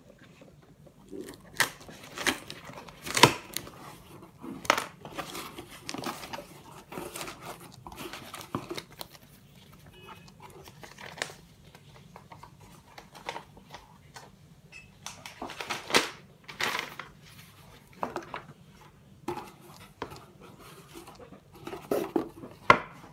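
A cardboard shipping box being unpacked by hand: packing tape cut and torn, flaps pulled open, paper rustling and a product box lifted out. It comes as irregular rustles, scrapes and knocks, with a sharp knock about three seconds in and another near the end.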